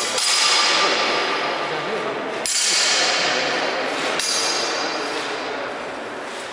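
Steel longswords clashing three times, blade on blade, each strike ringing out and fading in a large, echoing hall.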